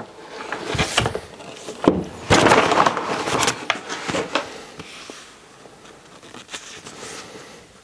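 Brown paper mailing bag rustling and crinkling as a boxed item is pulled out of it, loudest between about two and three and a half seconds in, followed by quieter handling rustles and light taps.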